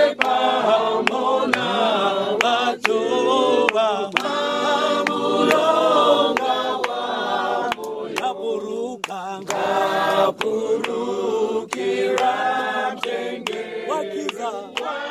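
A group of men and women singing a hymn together without instruments, with hand claps keeping a steady beat.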